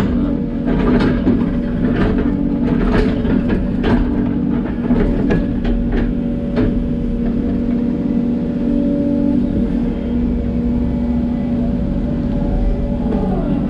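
Hidromek 140LC excavator's diesel engine running steadily under working load. Over the first several seconds it is joined by a string of sharp knocks and clatters; after that only the engine is heard.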